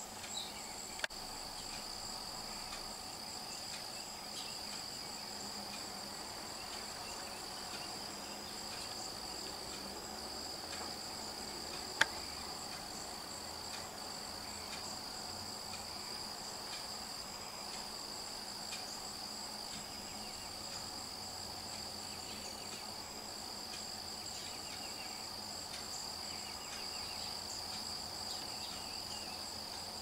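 Steady insect chorus, a continuous high trill at two pitches, with a single sharp click about twelve seconds in.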